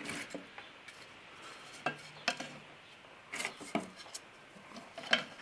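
Wooden mast wedges being set by hand around the rim of a metal tube, knocking and clattering against the metal and against each other in a scattered series of light knocks.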